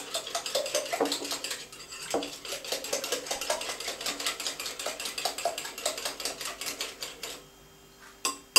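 Two eggs being whisked hard in a bowl, the utensil clicking rapidly and evenly against the bowl, several strokes a second. The whisking stops about a second before the end, followed by a single knock.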